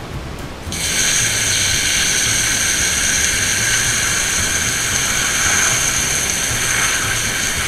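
Handheld toilet bidet sprayer shooting a jet of water onto small sardines (tamban) in a plastic bag, washing the scales off: a steady hiss that starts about a second in.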